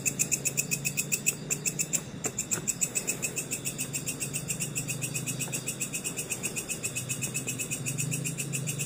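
Night insects chirping in a fast, even, high-pitched pulse of about seven or eight chirps a second, over a low steady hum.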